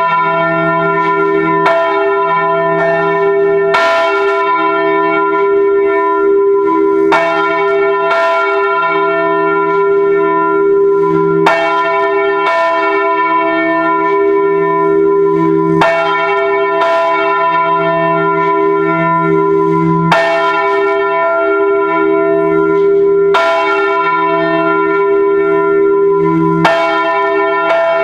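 Full peal of four swinging bronze church bells (e', g-sharp', b' and c-sharp'), cast in 1949 by the A. Junker foundry in Brilon, heard close up from inside the bell chamber. The clapper strikes overlap into continuous, loud ringing.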